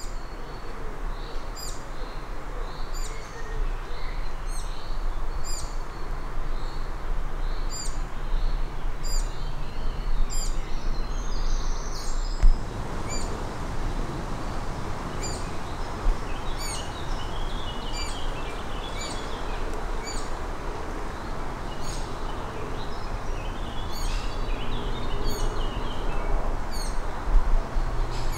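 Several birds singing, with short high chirps and brief warbled phrases repeating throughout, over a steady low rush of background noise.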